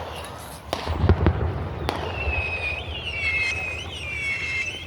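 Fireworks going off: several sharp bangs and pops in the first two seconds, the loudest about a second in, then a high wavering whistle that holds through the rest.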